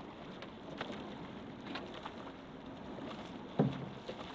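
Rowing eight moving on the water: water washing along the hull, with a few sharp knocks from the oars and boat. The loudest knock is a deeper thud about three and a half seconds in.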